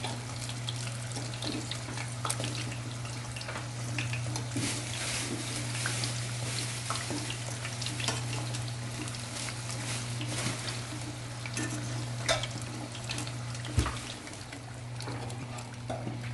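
Sambosas deep-frying in hot oil in a stainless steel pot: a steady crackling sizzle over a low hum. A metal utensil knocks against the pot twice near the end.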